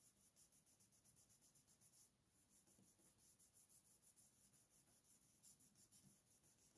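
Near silence, with faint rubbing of glued paper being pressed and shaped by hand over a paper earring.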